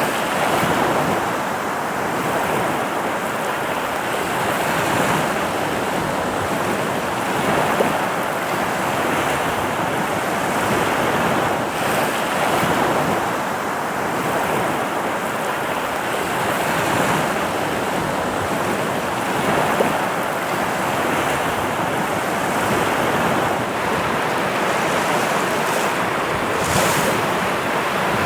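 Sea waves breaking and washing up a sandy beach at the water's edge: a continuous surf wash that swells and eases gently.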